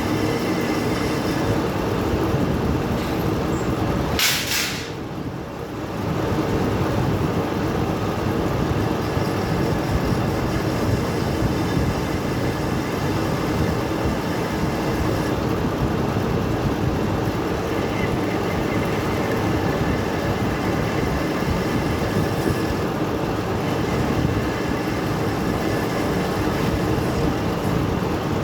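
Metal-turning lathe running steadily with a dense mechanical drone. About four seconds in there is a brief sharp hiss, then the noise dips for a moment before carrying on.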